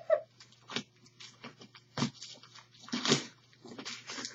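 Plastic cling wrap crinkling and rustling in irregular short bursts as a heavily wrapped bundle is pulled and worked open.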